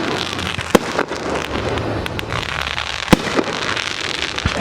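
Consumer fireworks going off: three sharp bangs over steady crackling.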